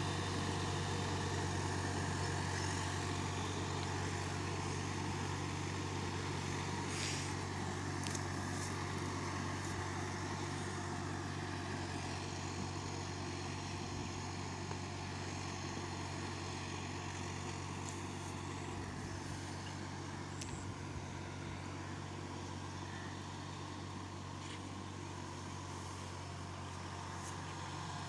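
Ford tractor's diesel engine running steadily under load as it pulls an implement through a flooded field, slowly growing fainter as it moves away.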